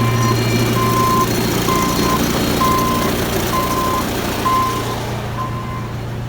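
Vehicle reversing alarm beeping steadily about once a second, with a running engine droning underneath.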